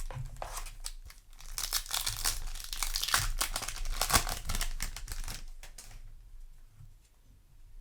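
Foil wrapper of a Yu-Gi-Oh! booster pack being torn open and crinkled by hand, a dense run of crackling that fades out near the end.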